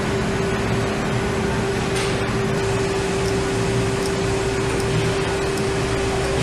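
Steady hum of factory production-line machinery: one constant mid-pitched tone over a low rumbling drone, with a few faint clicks.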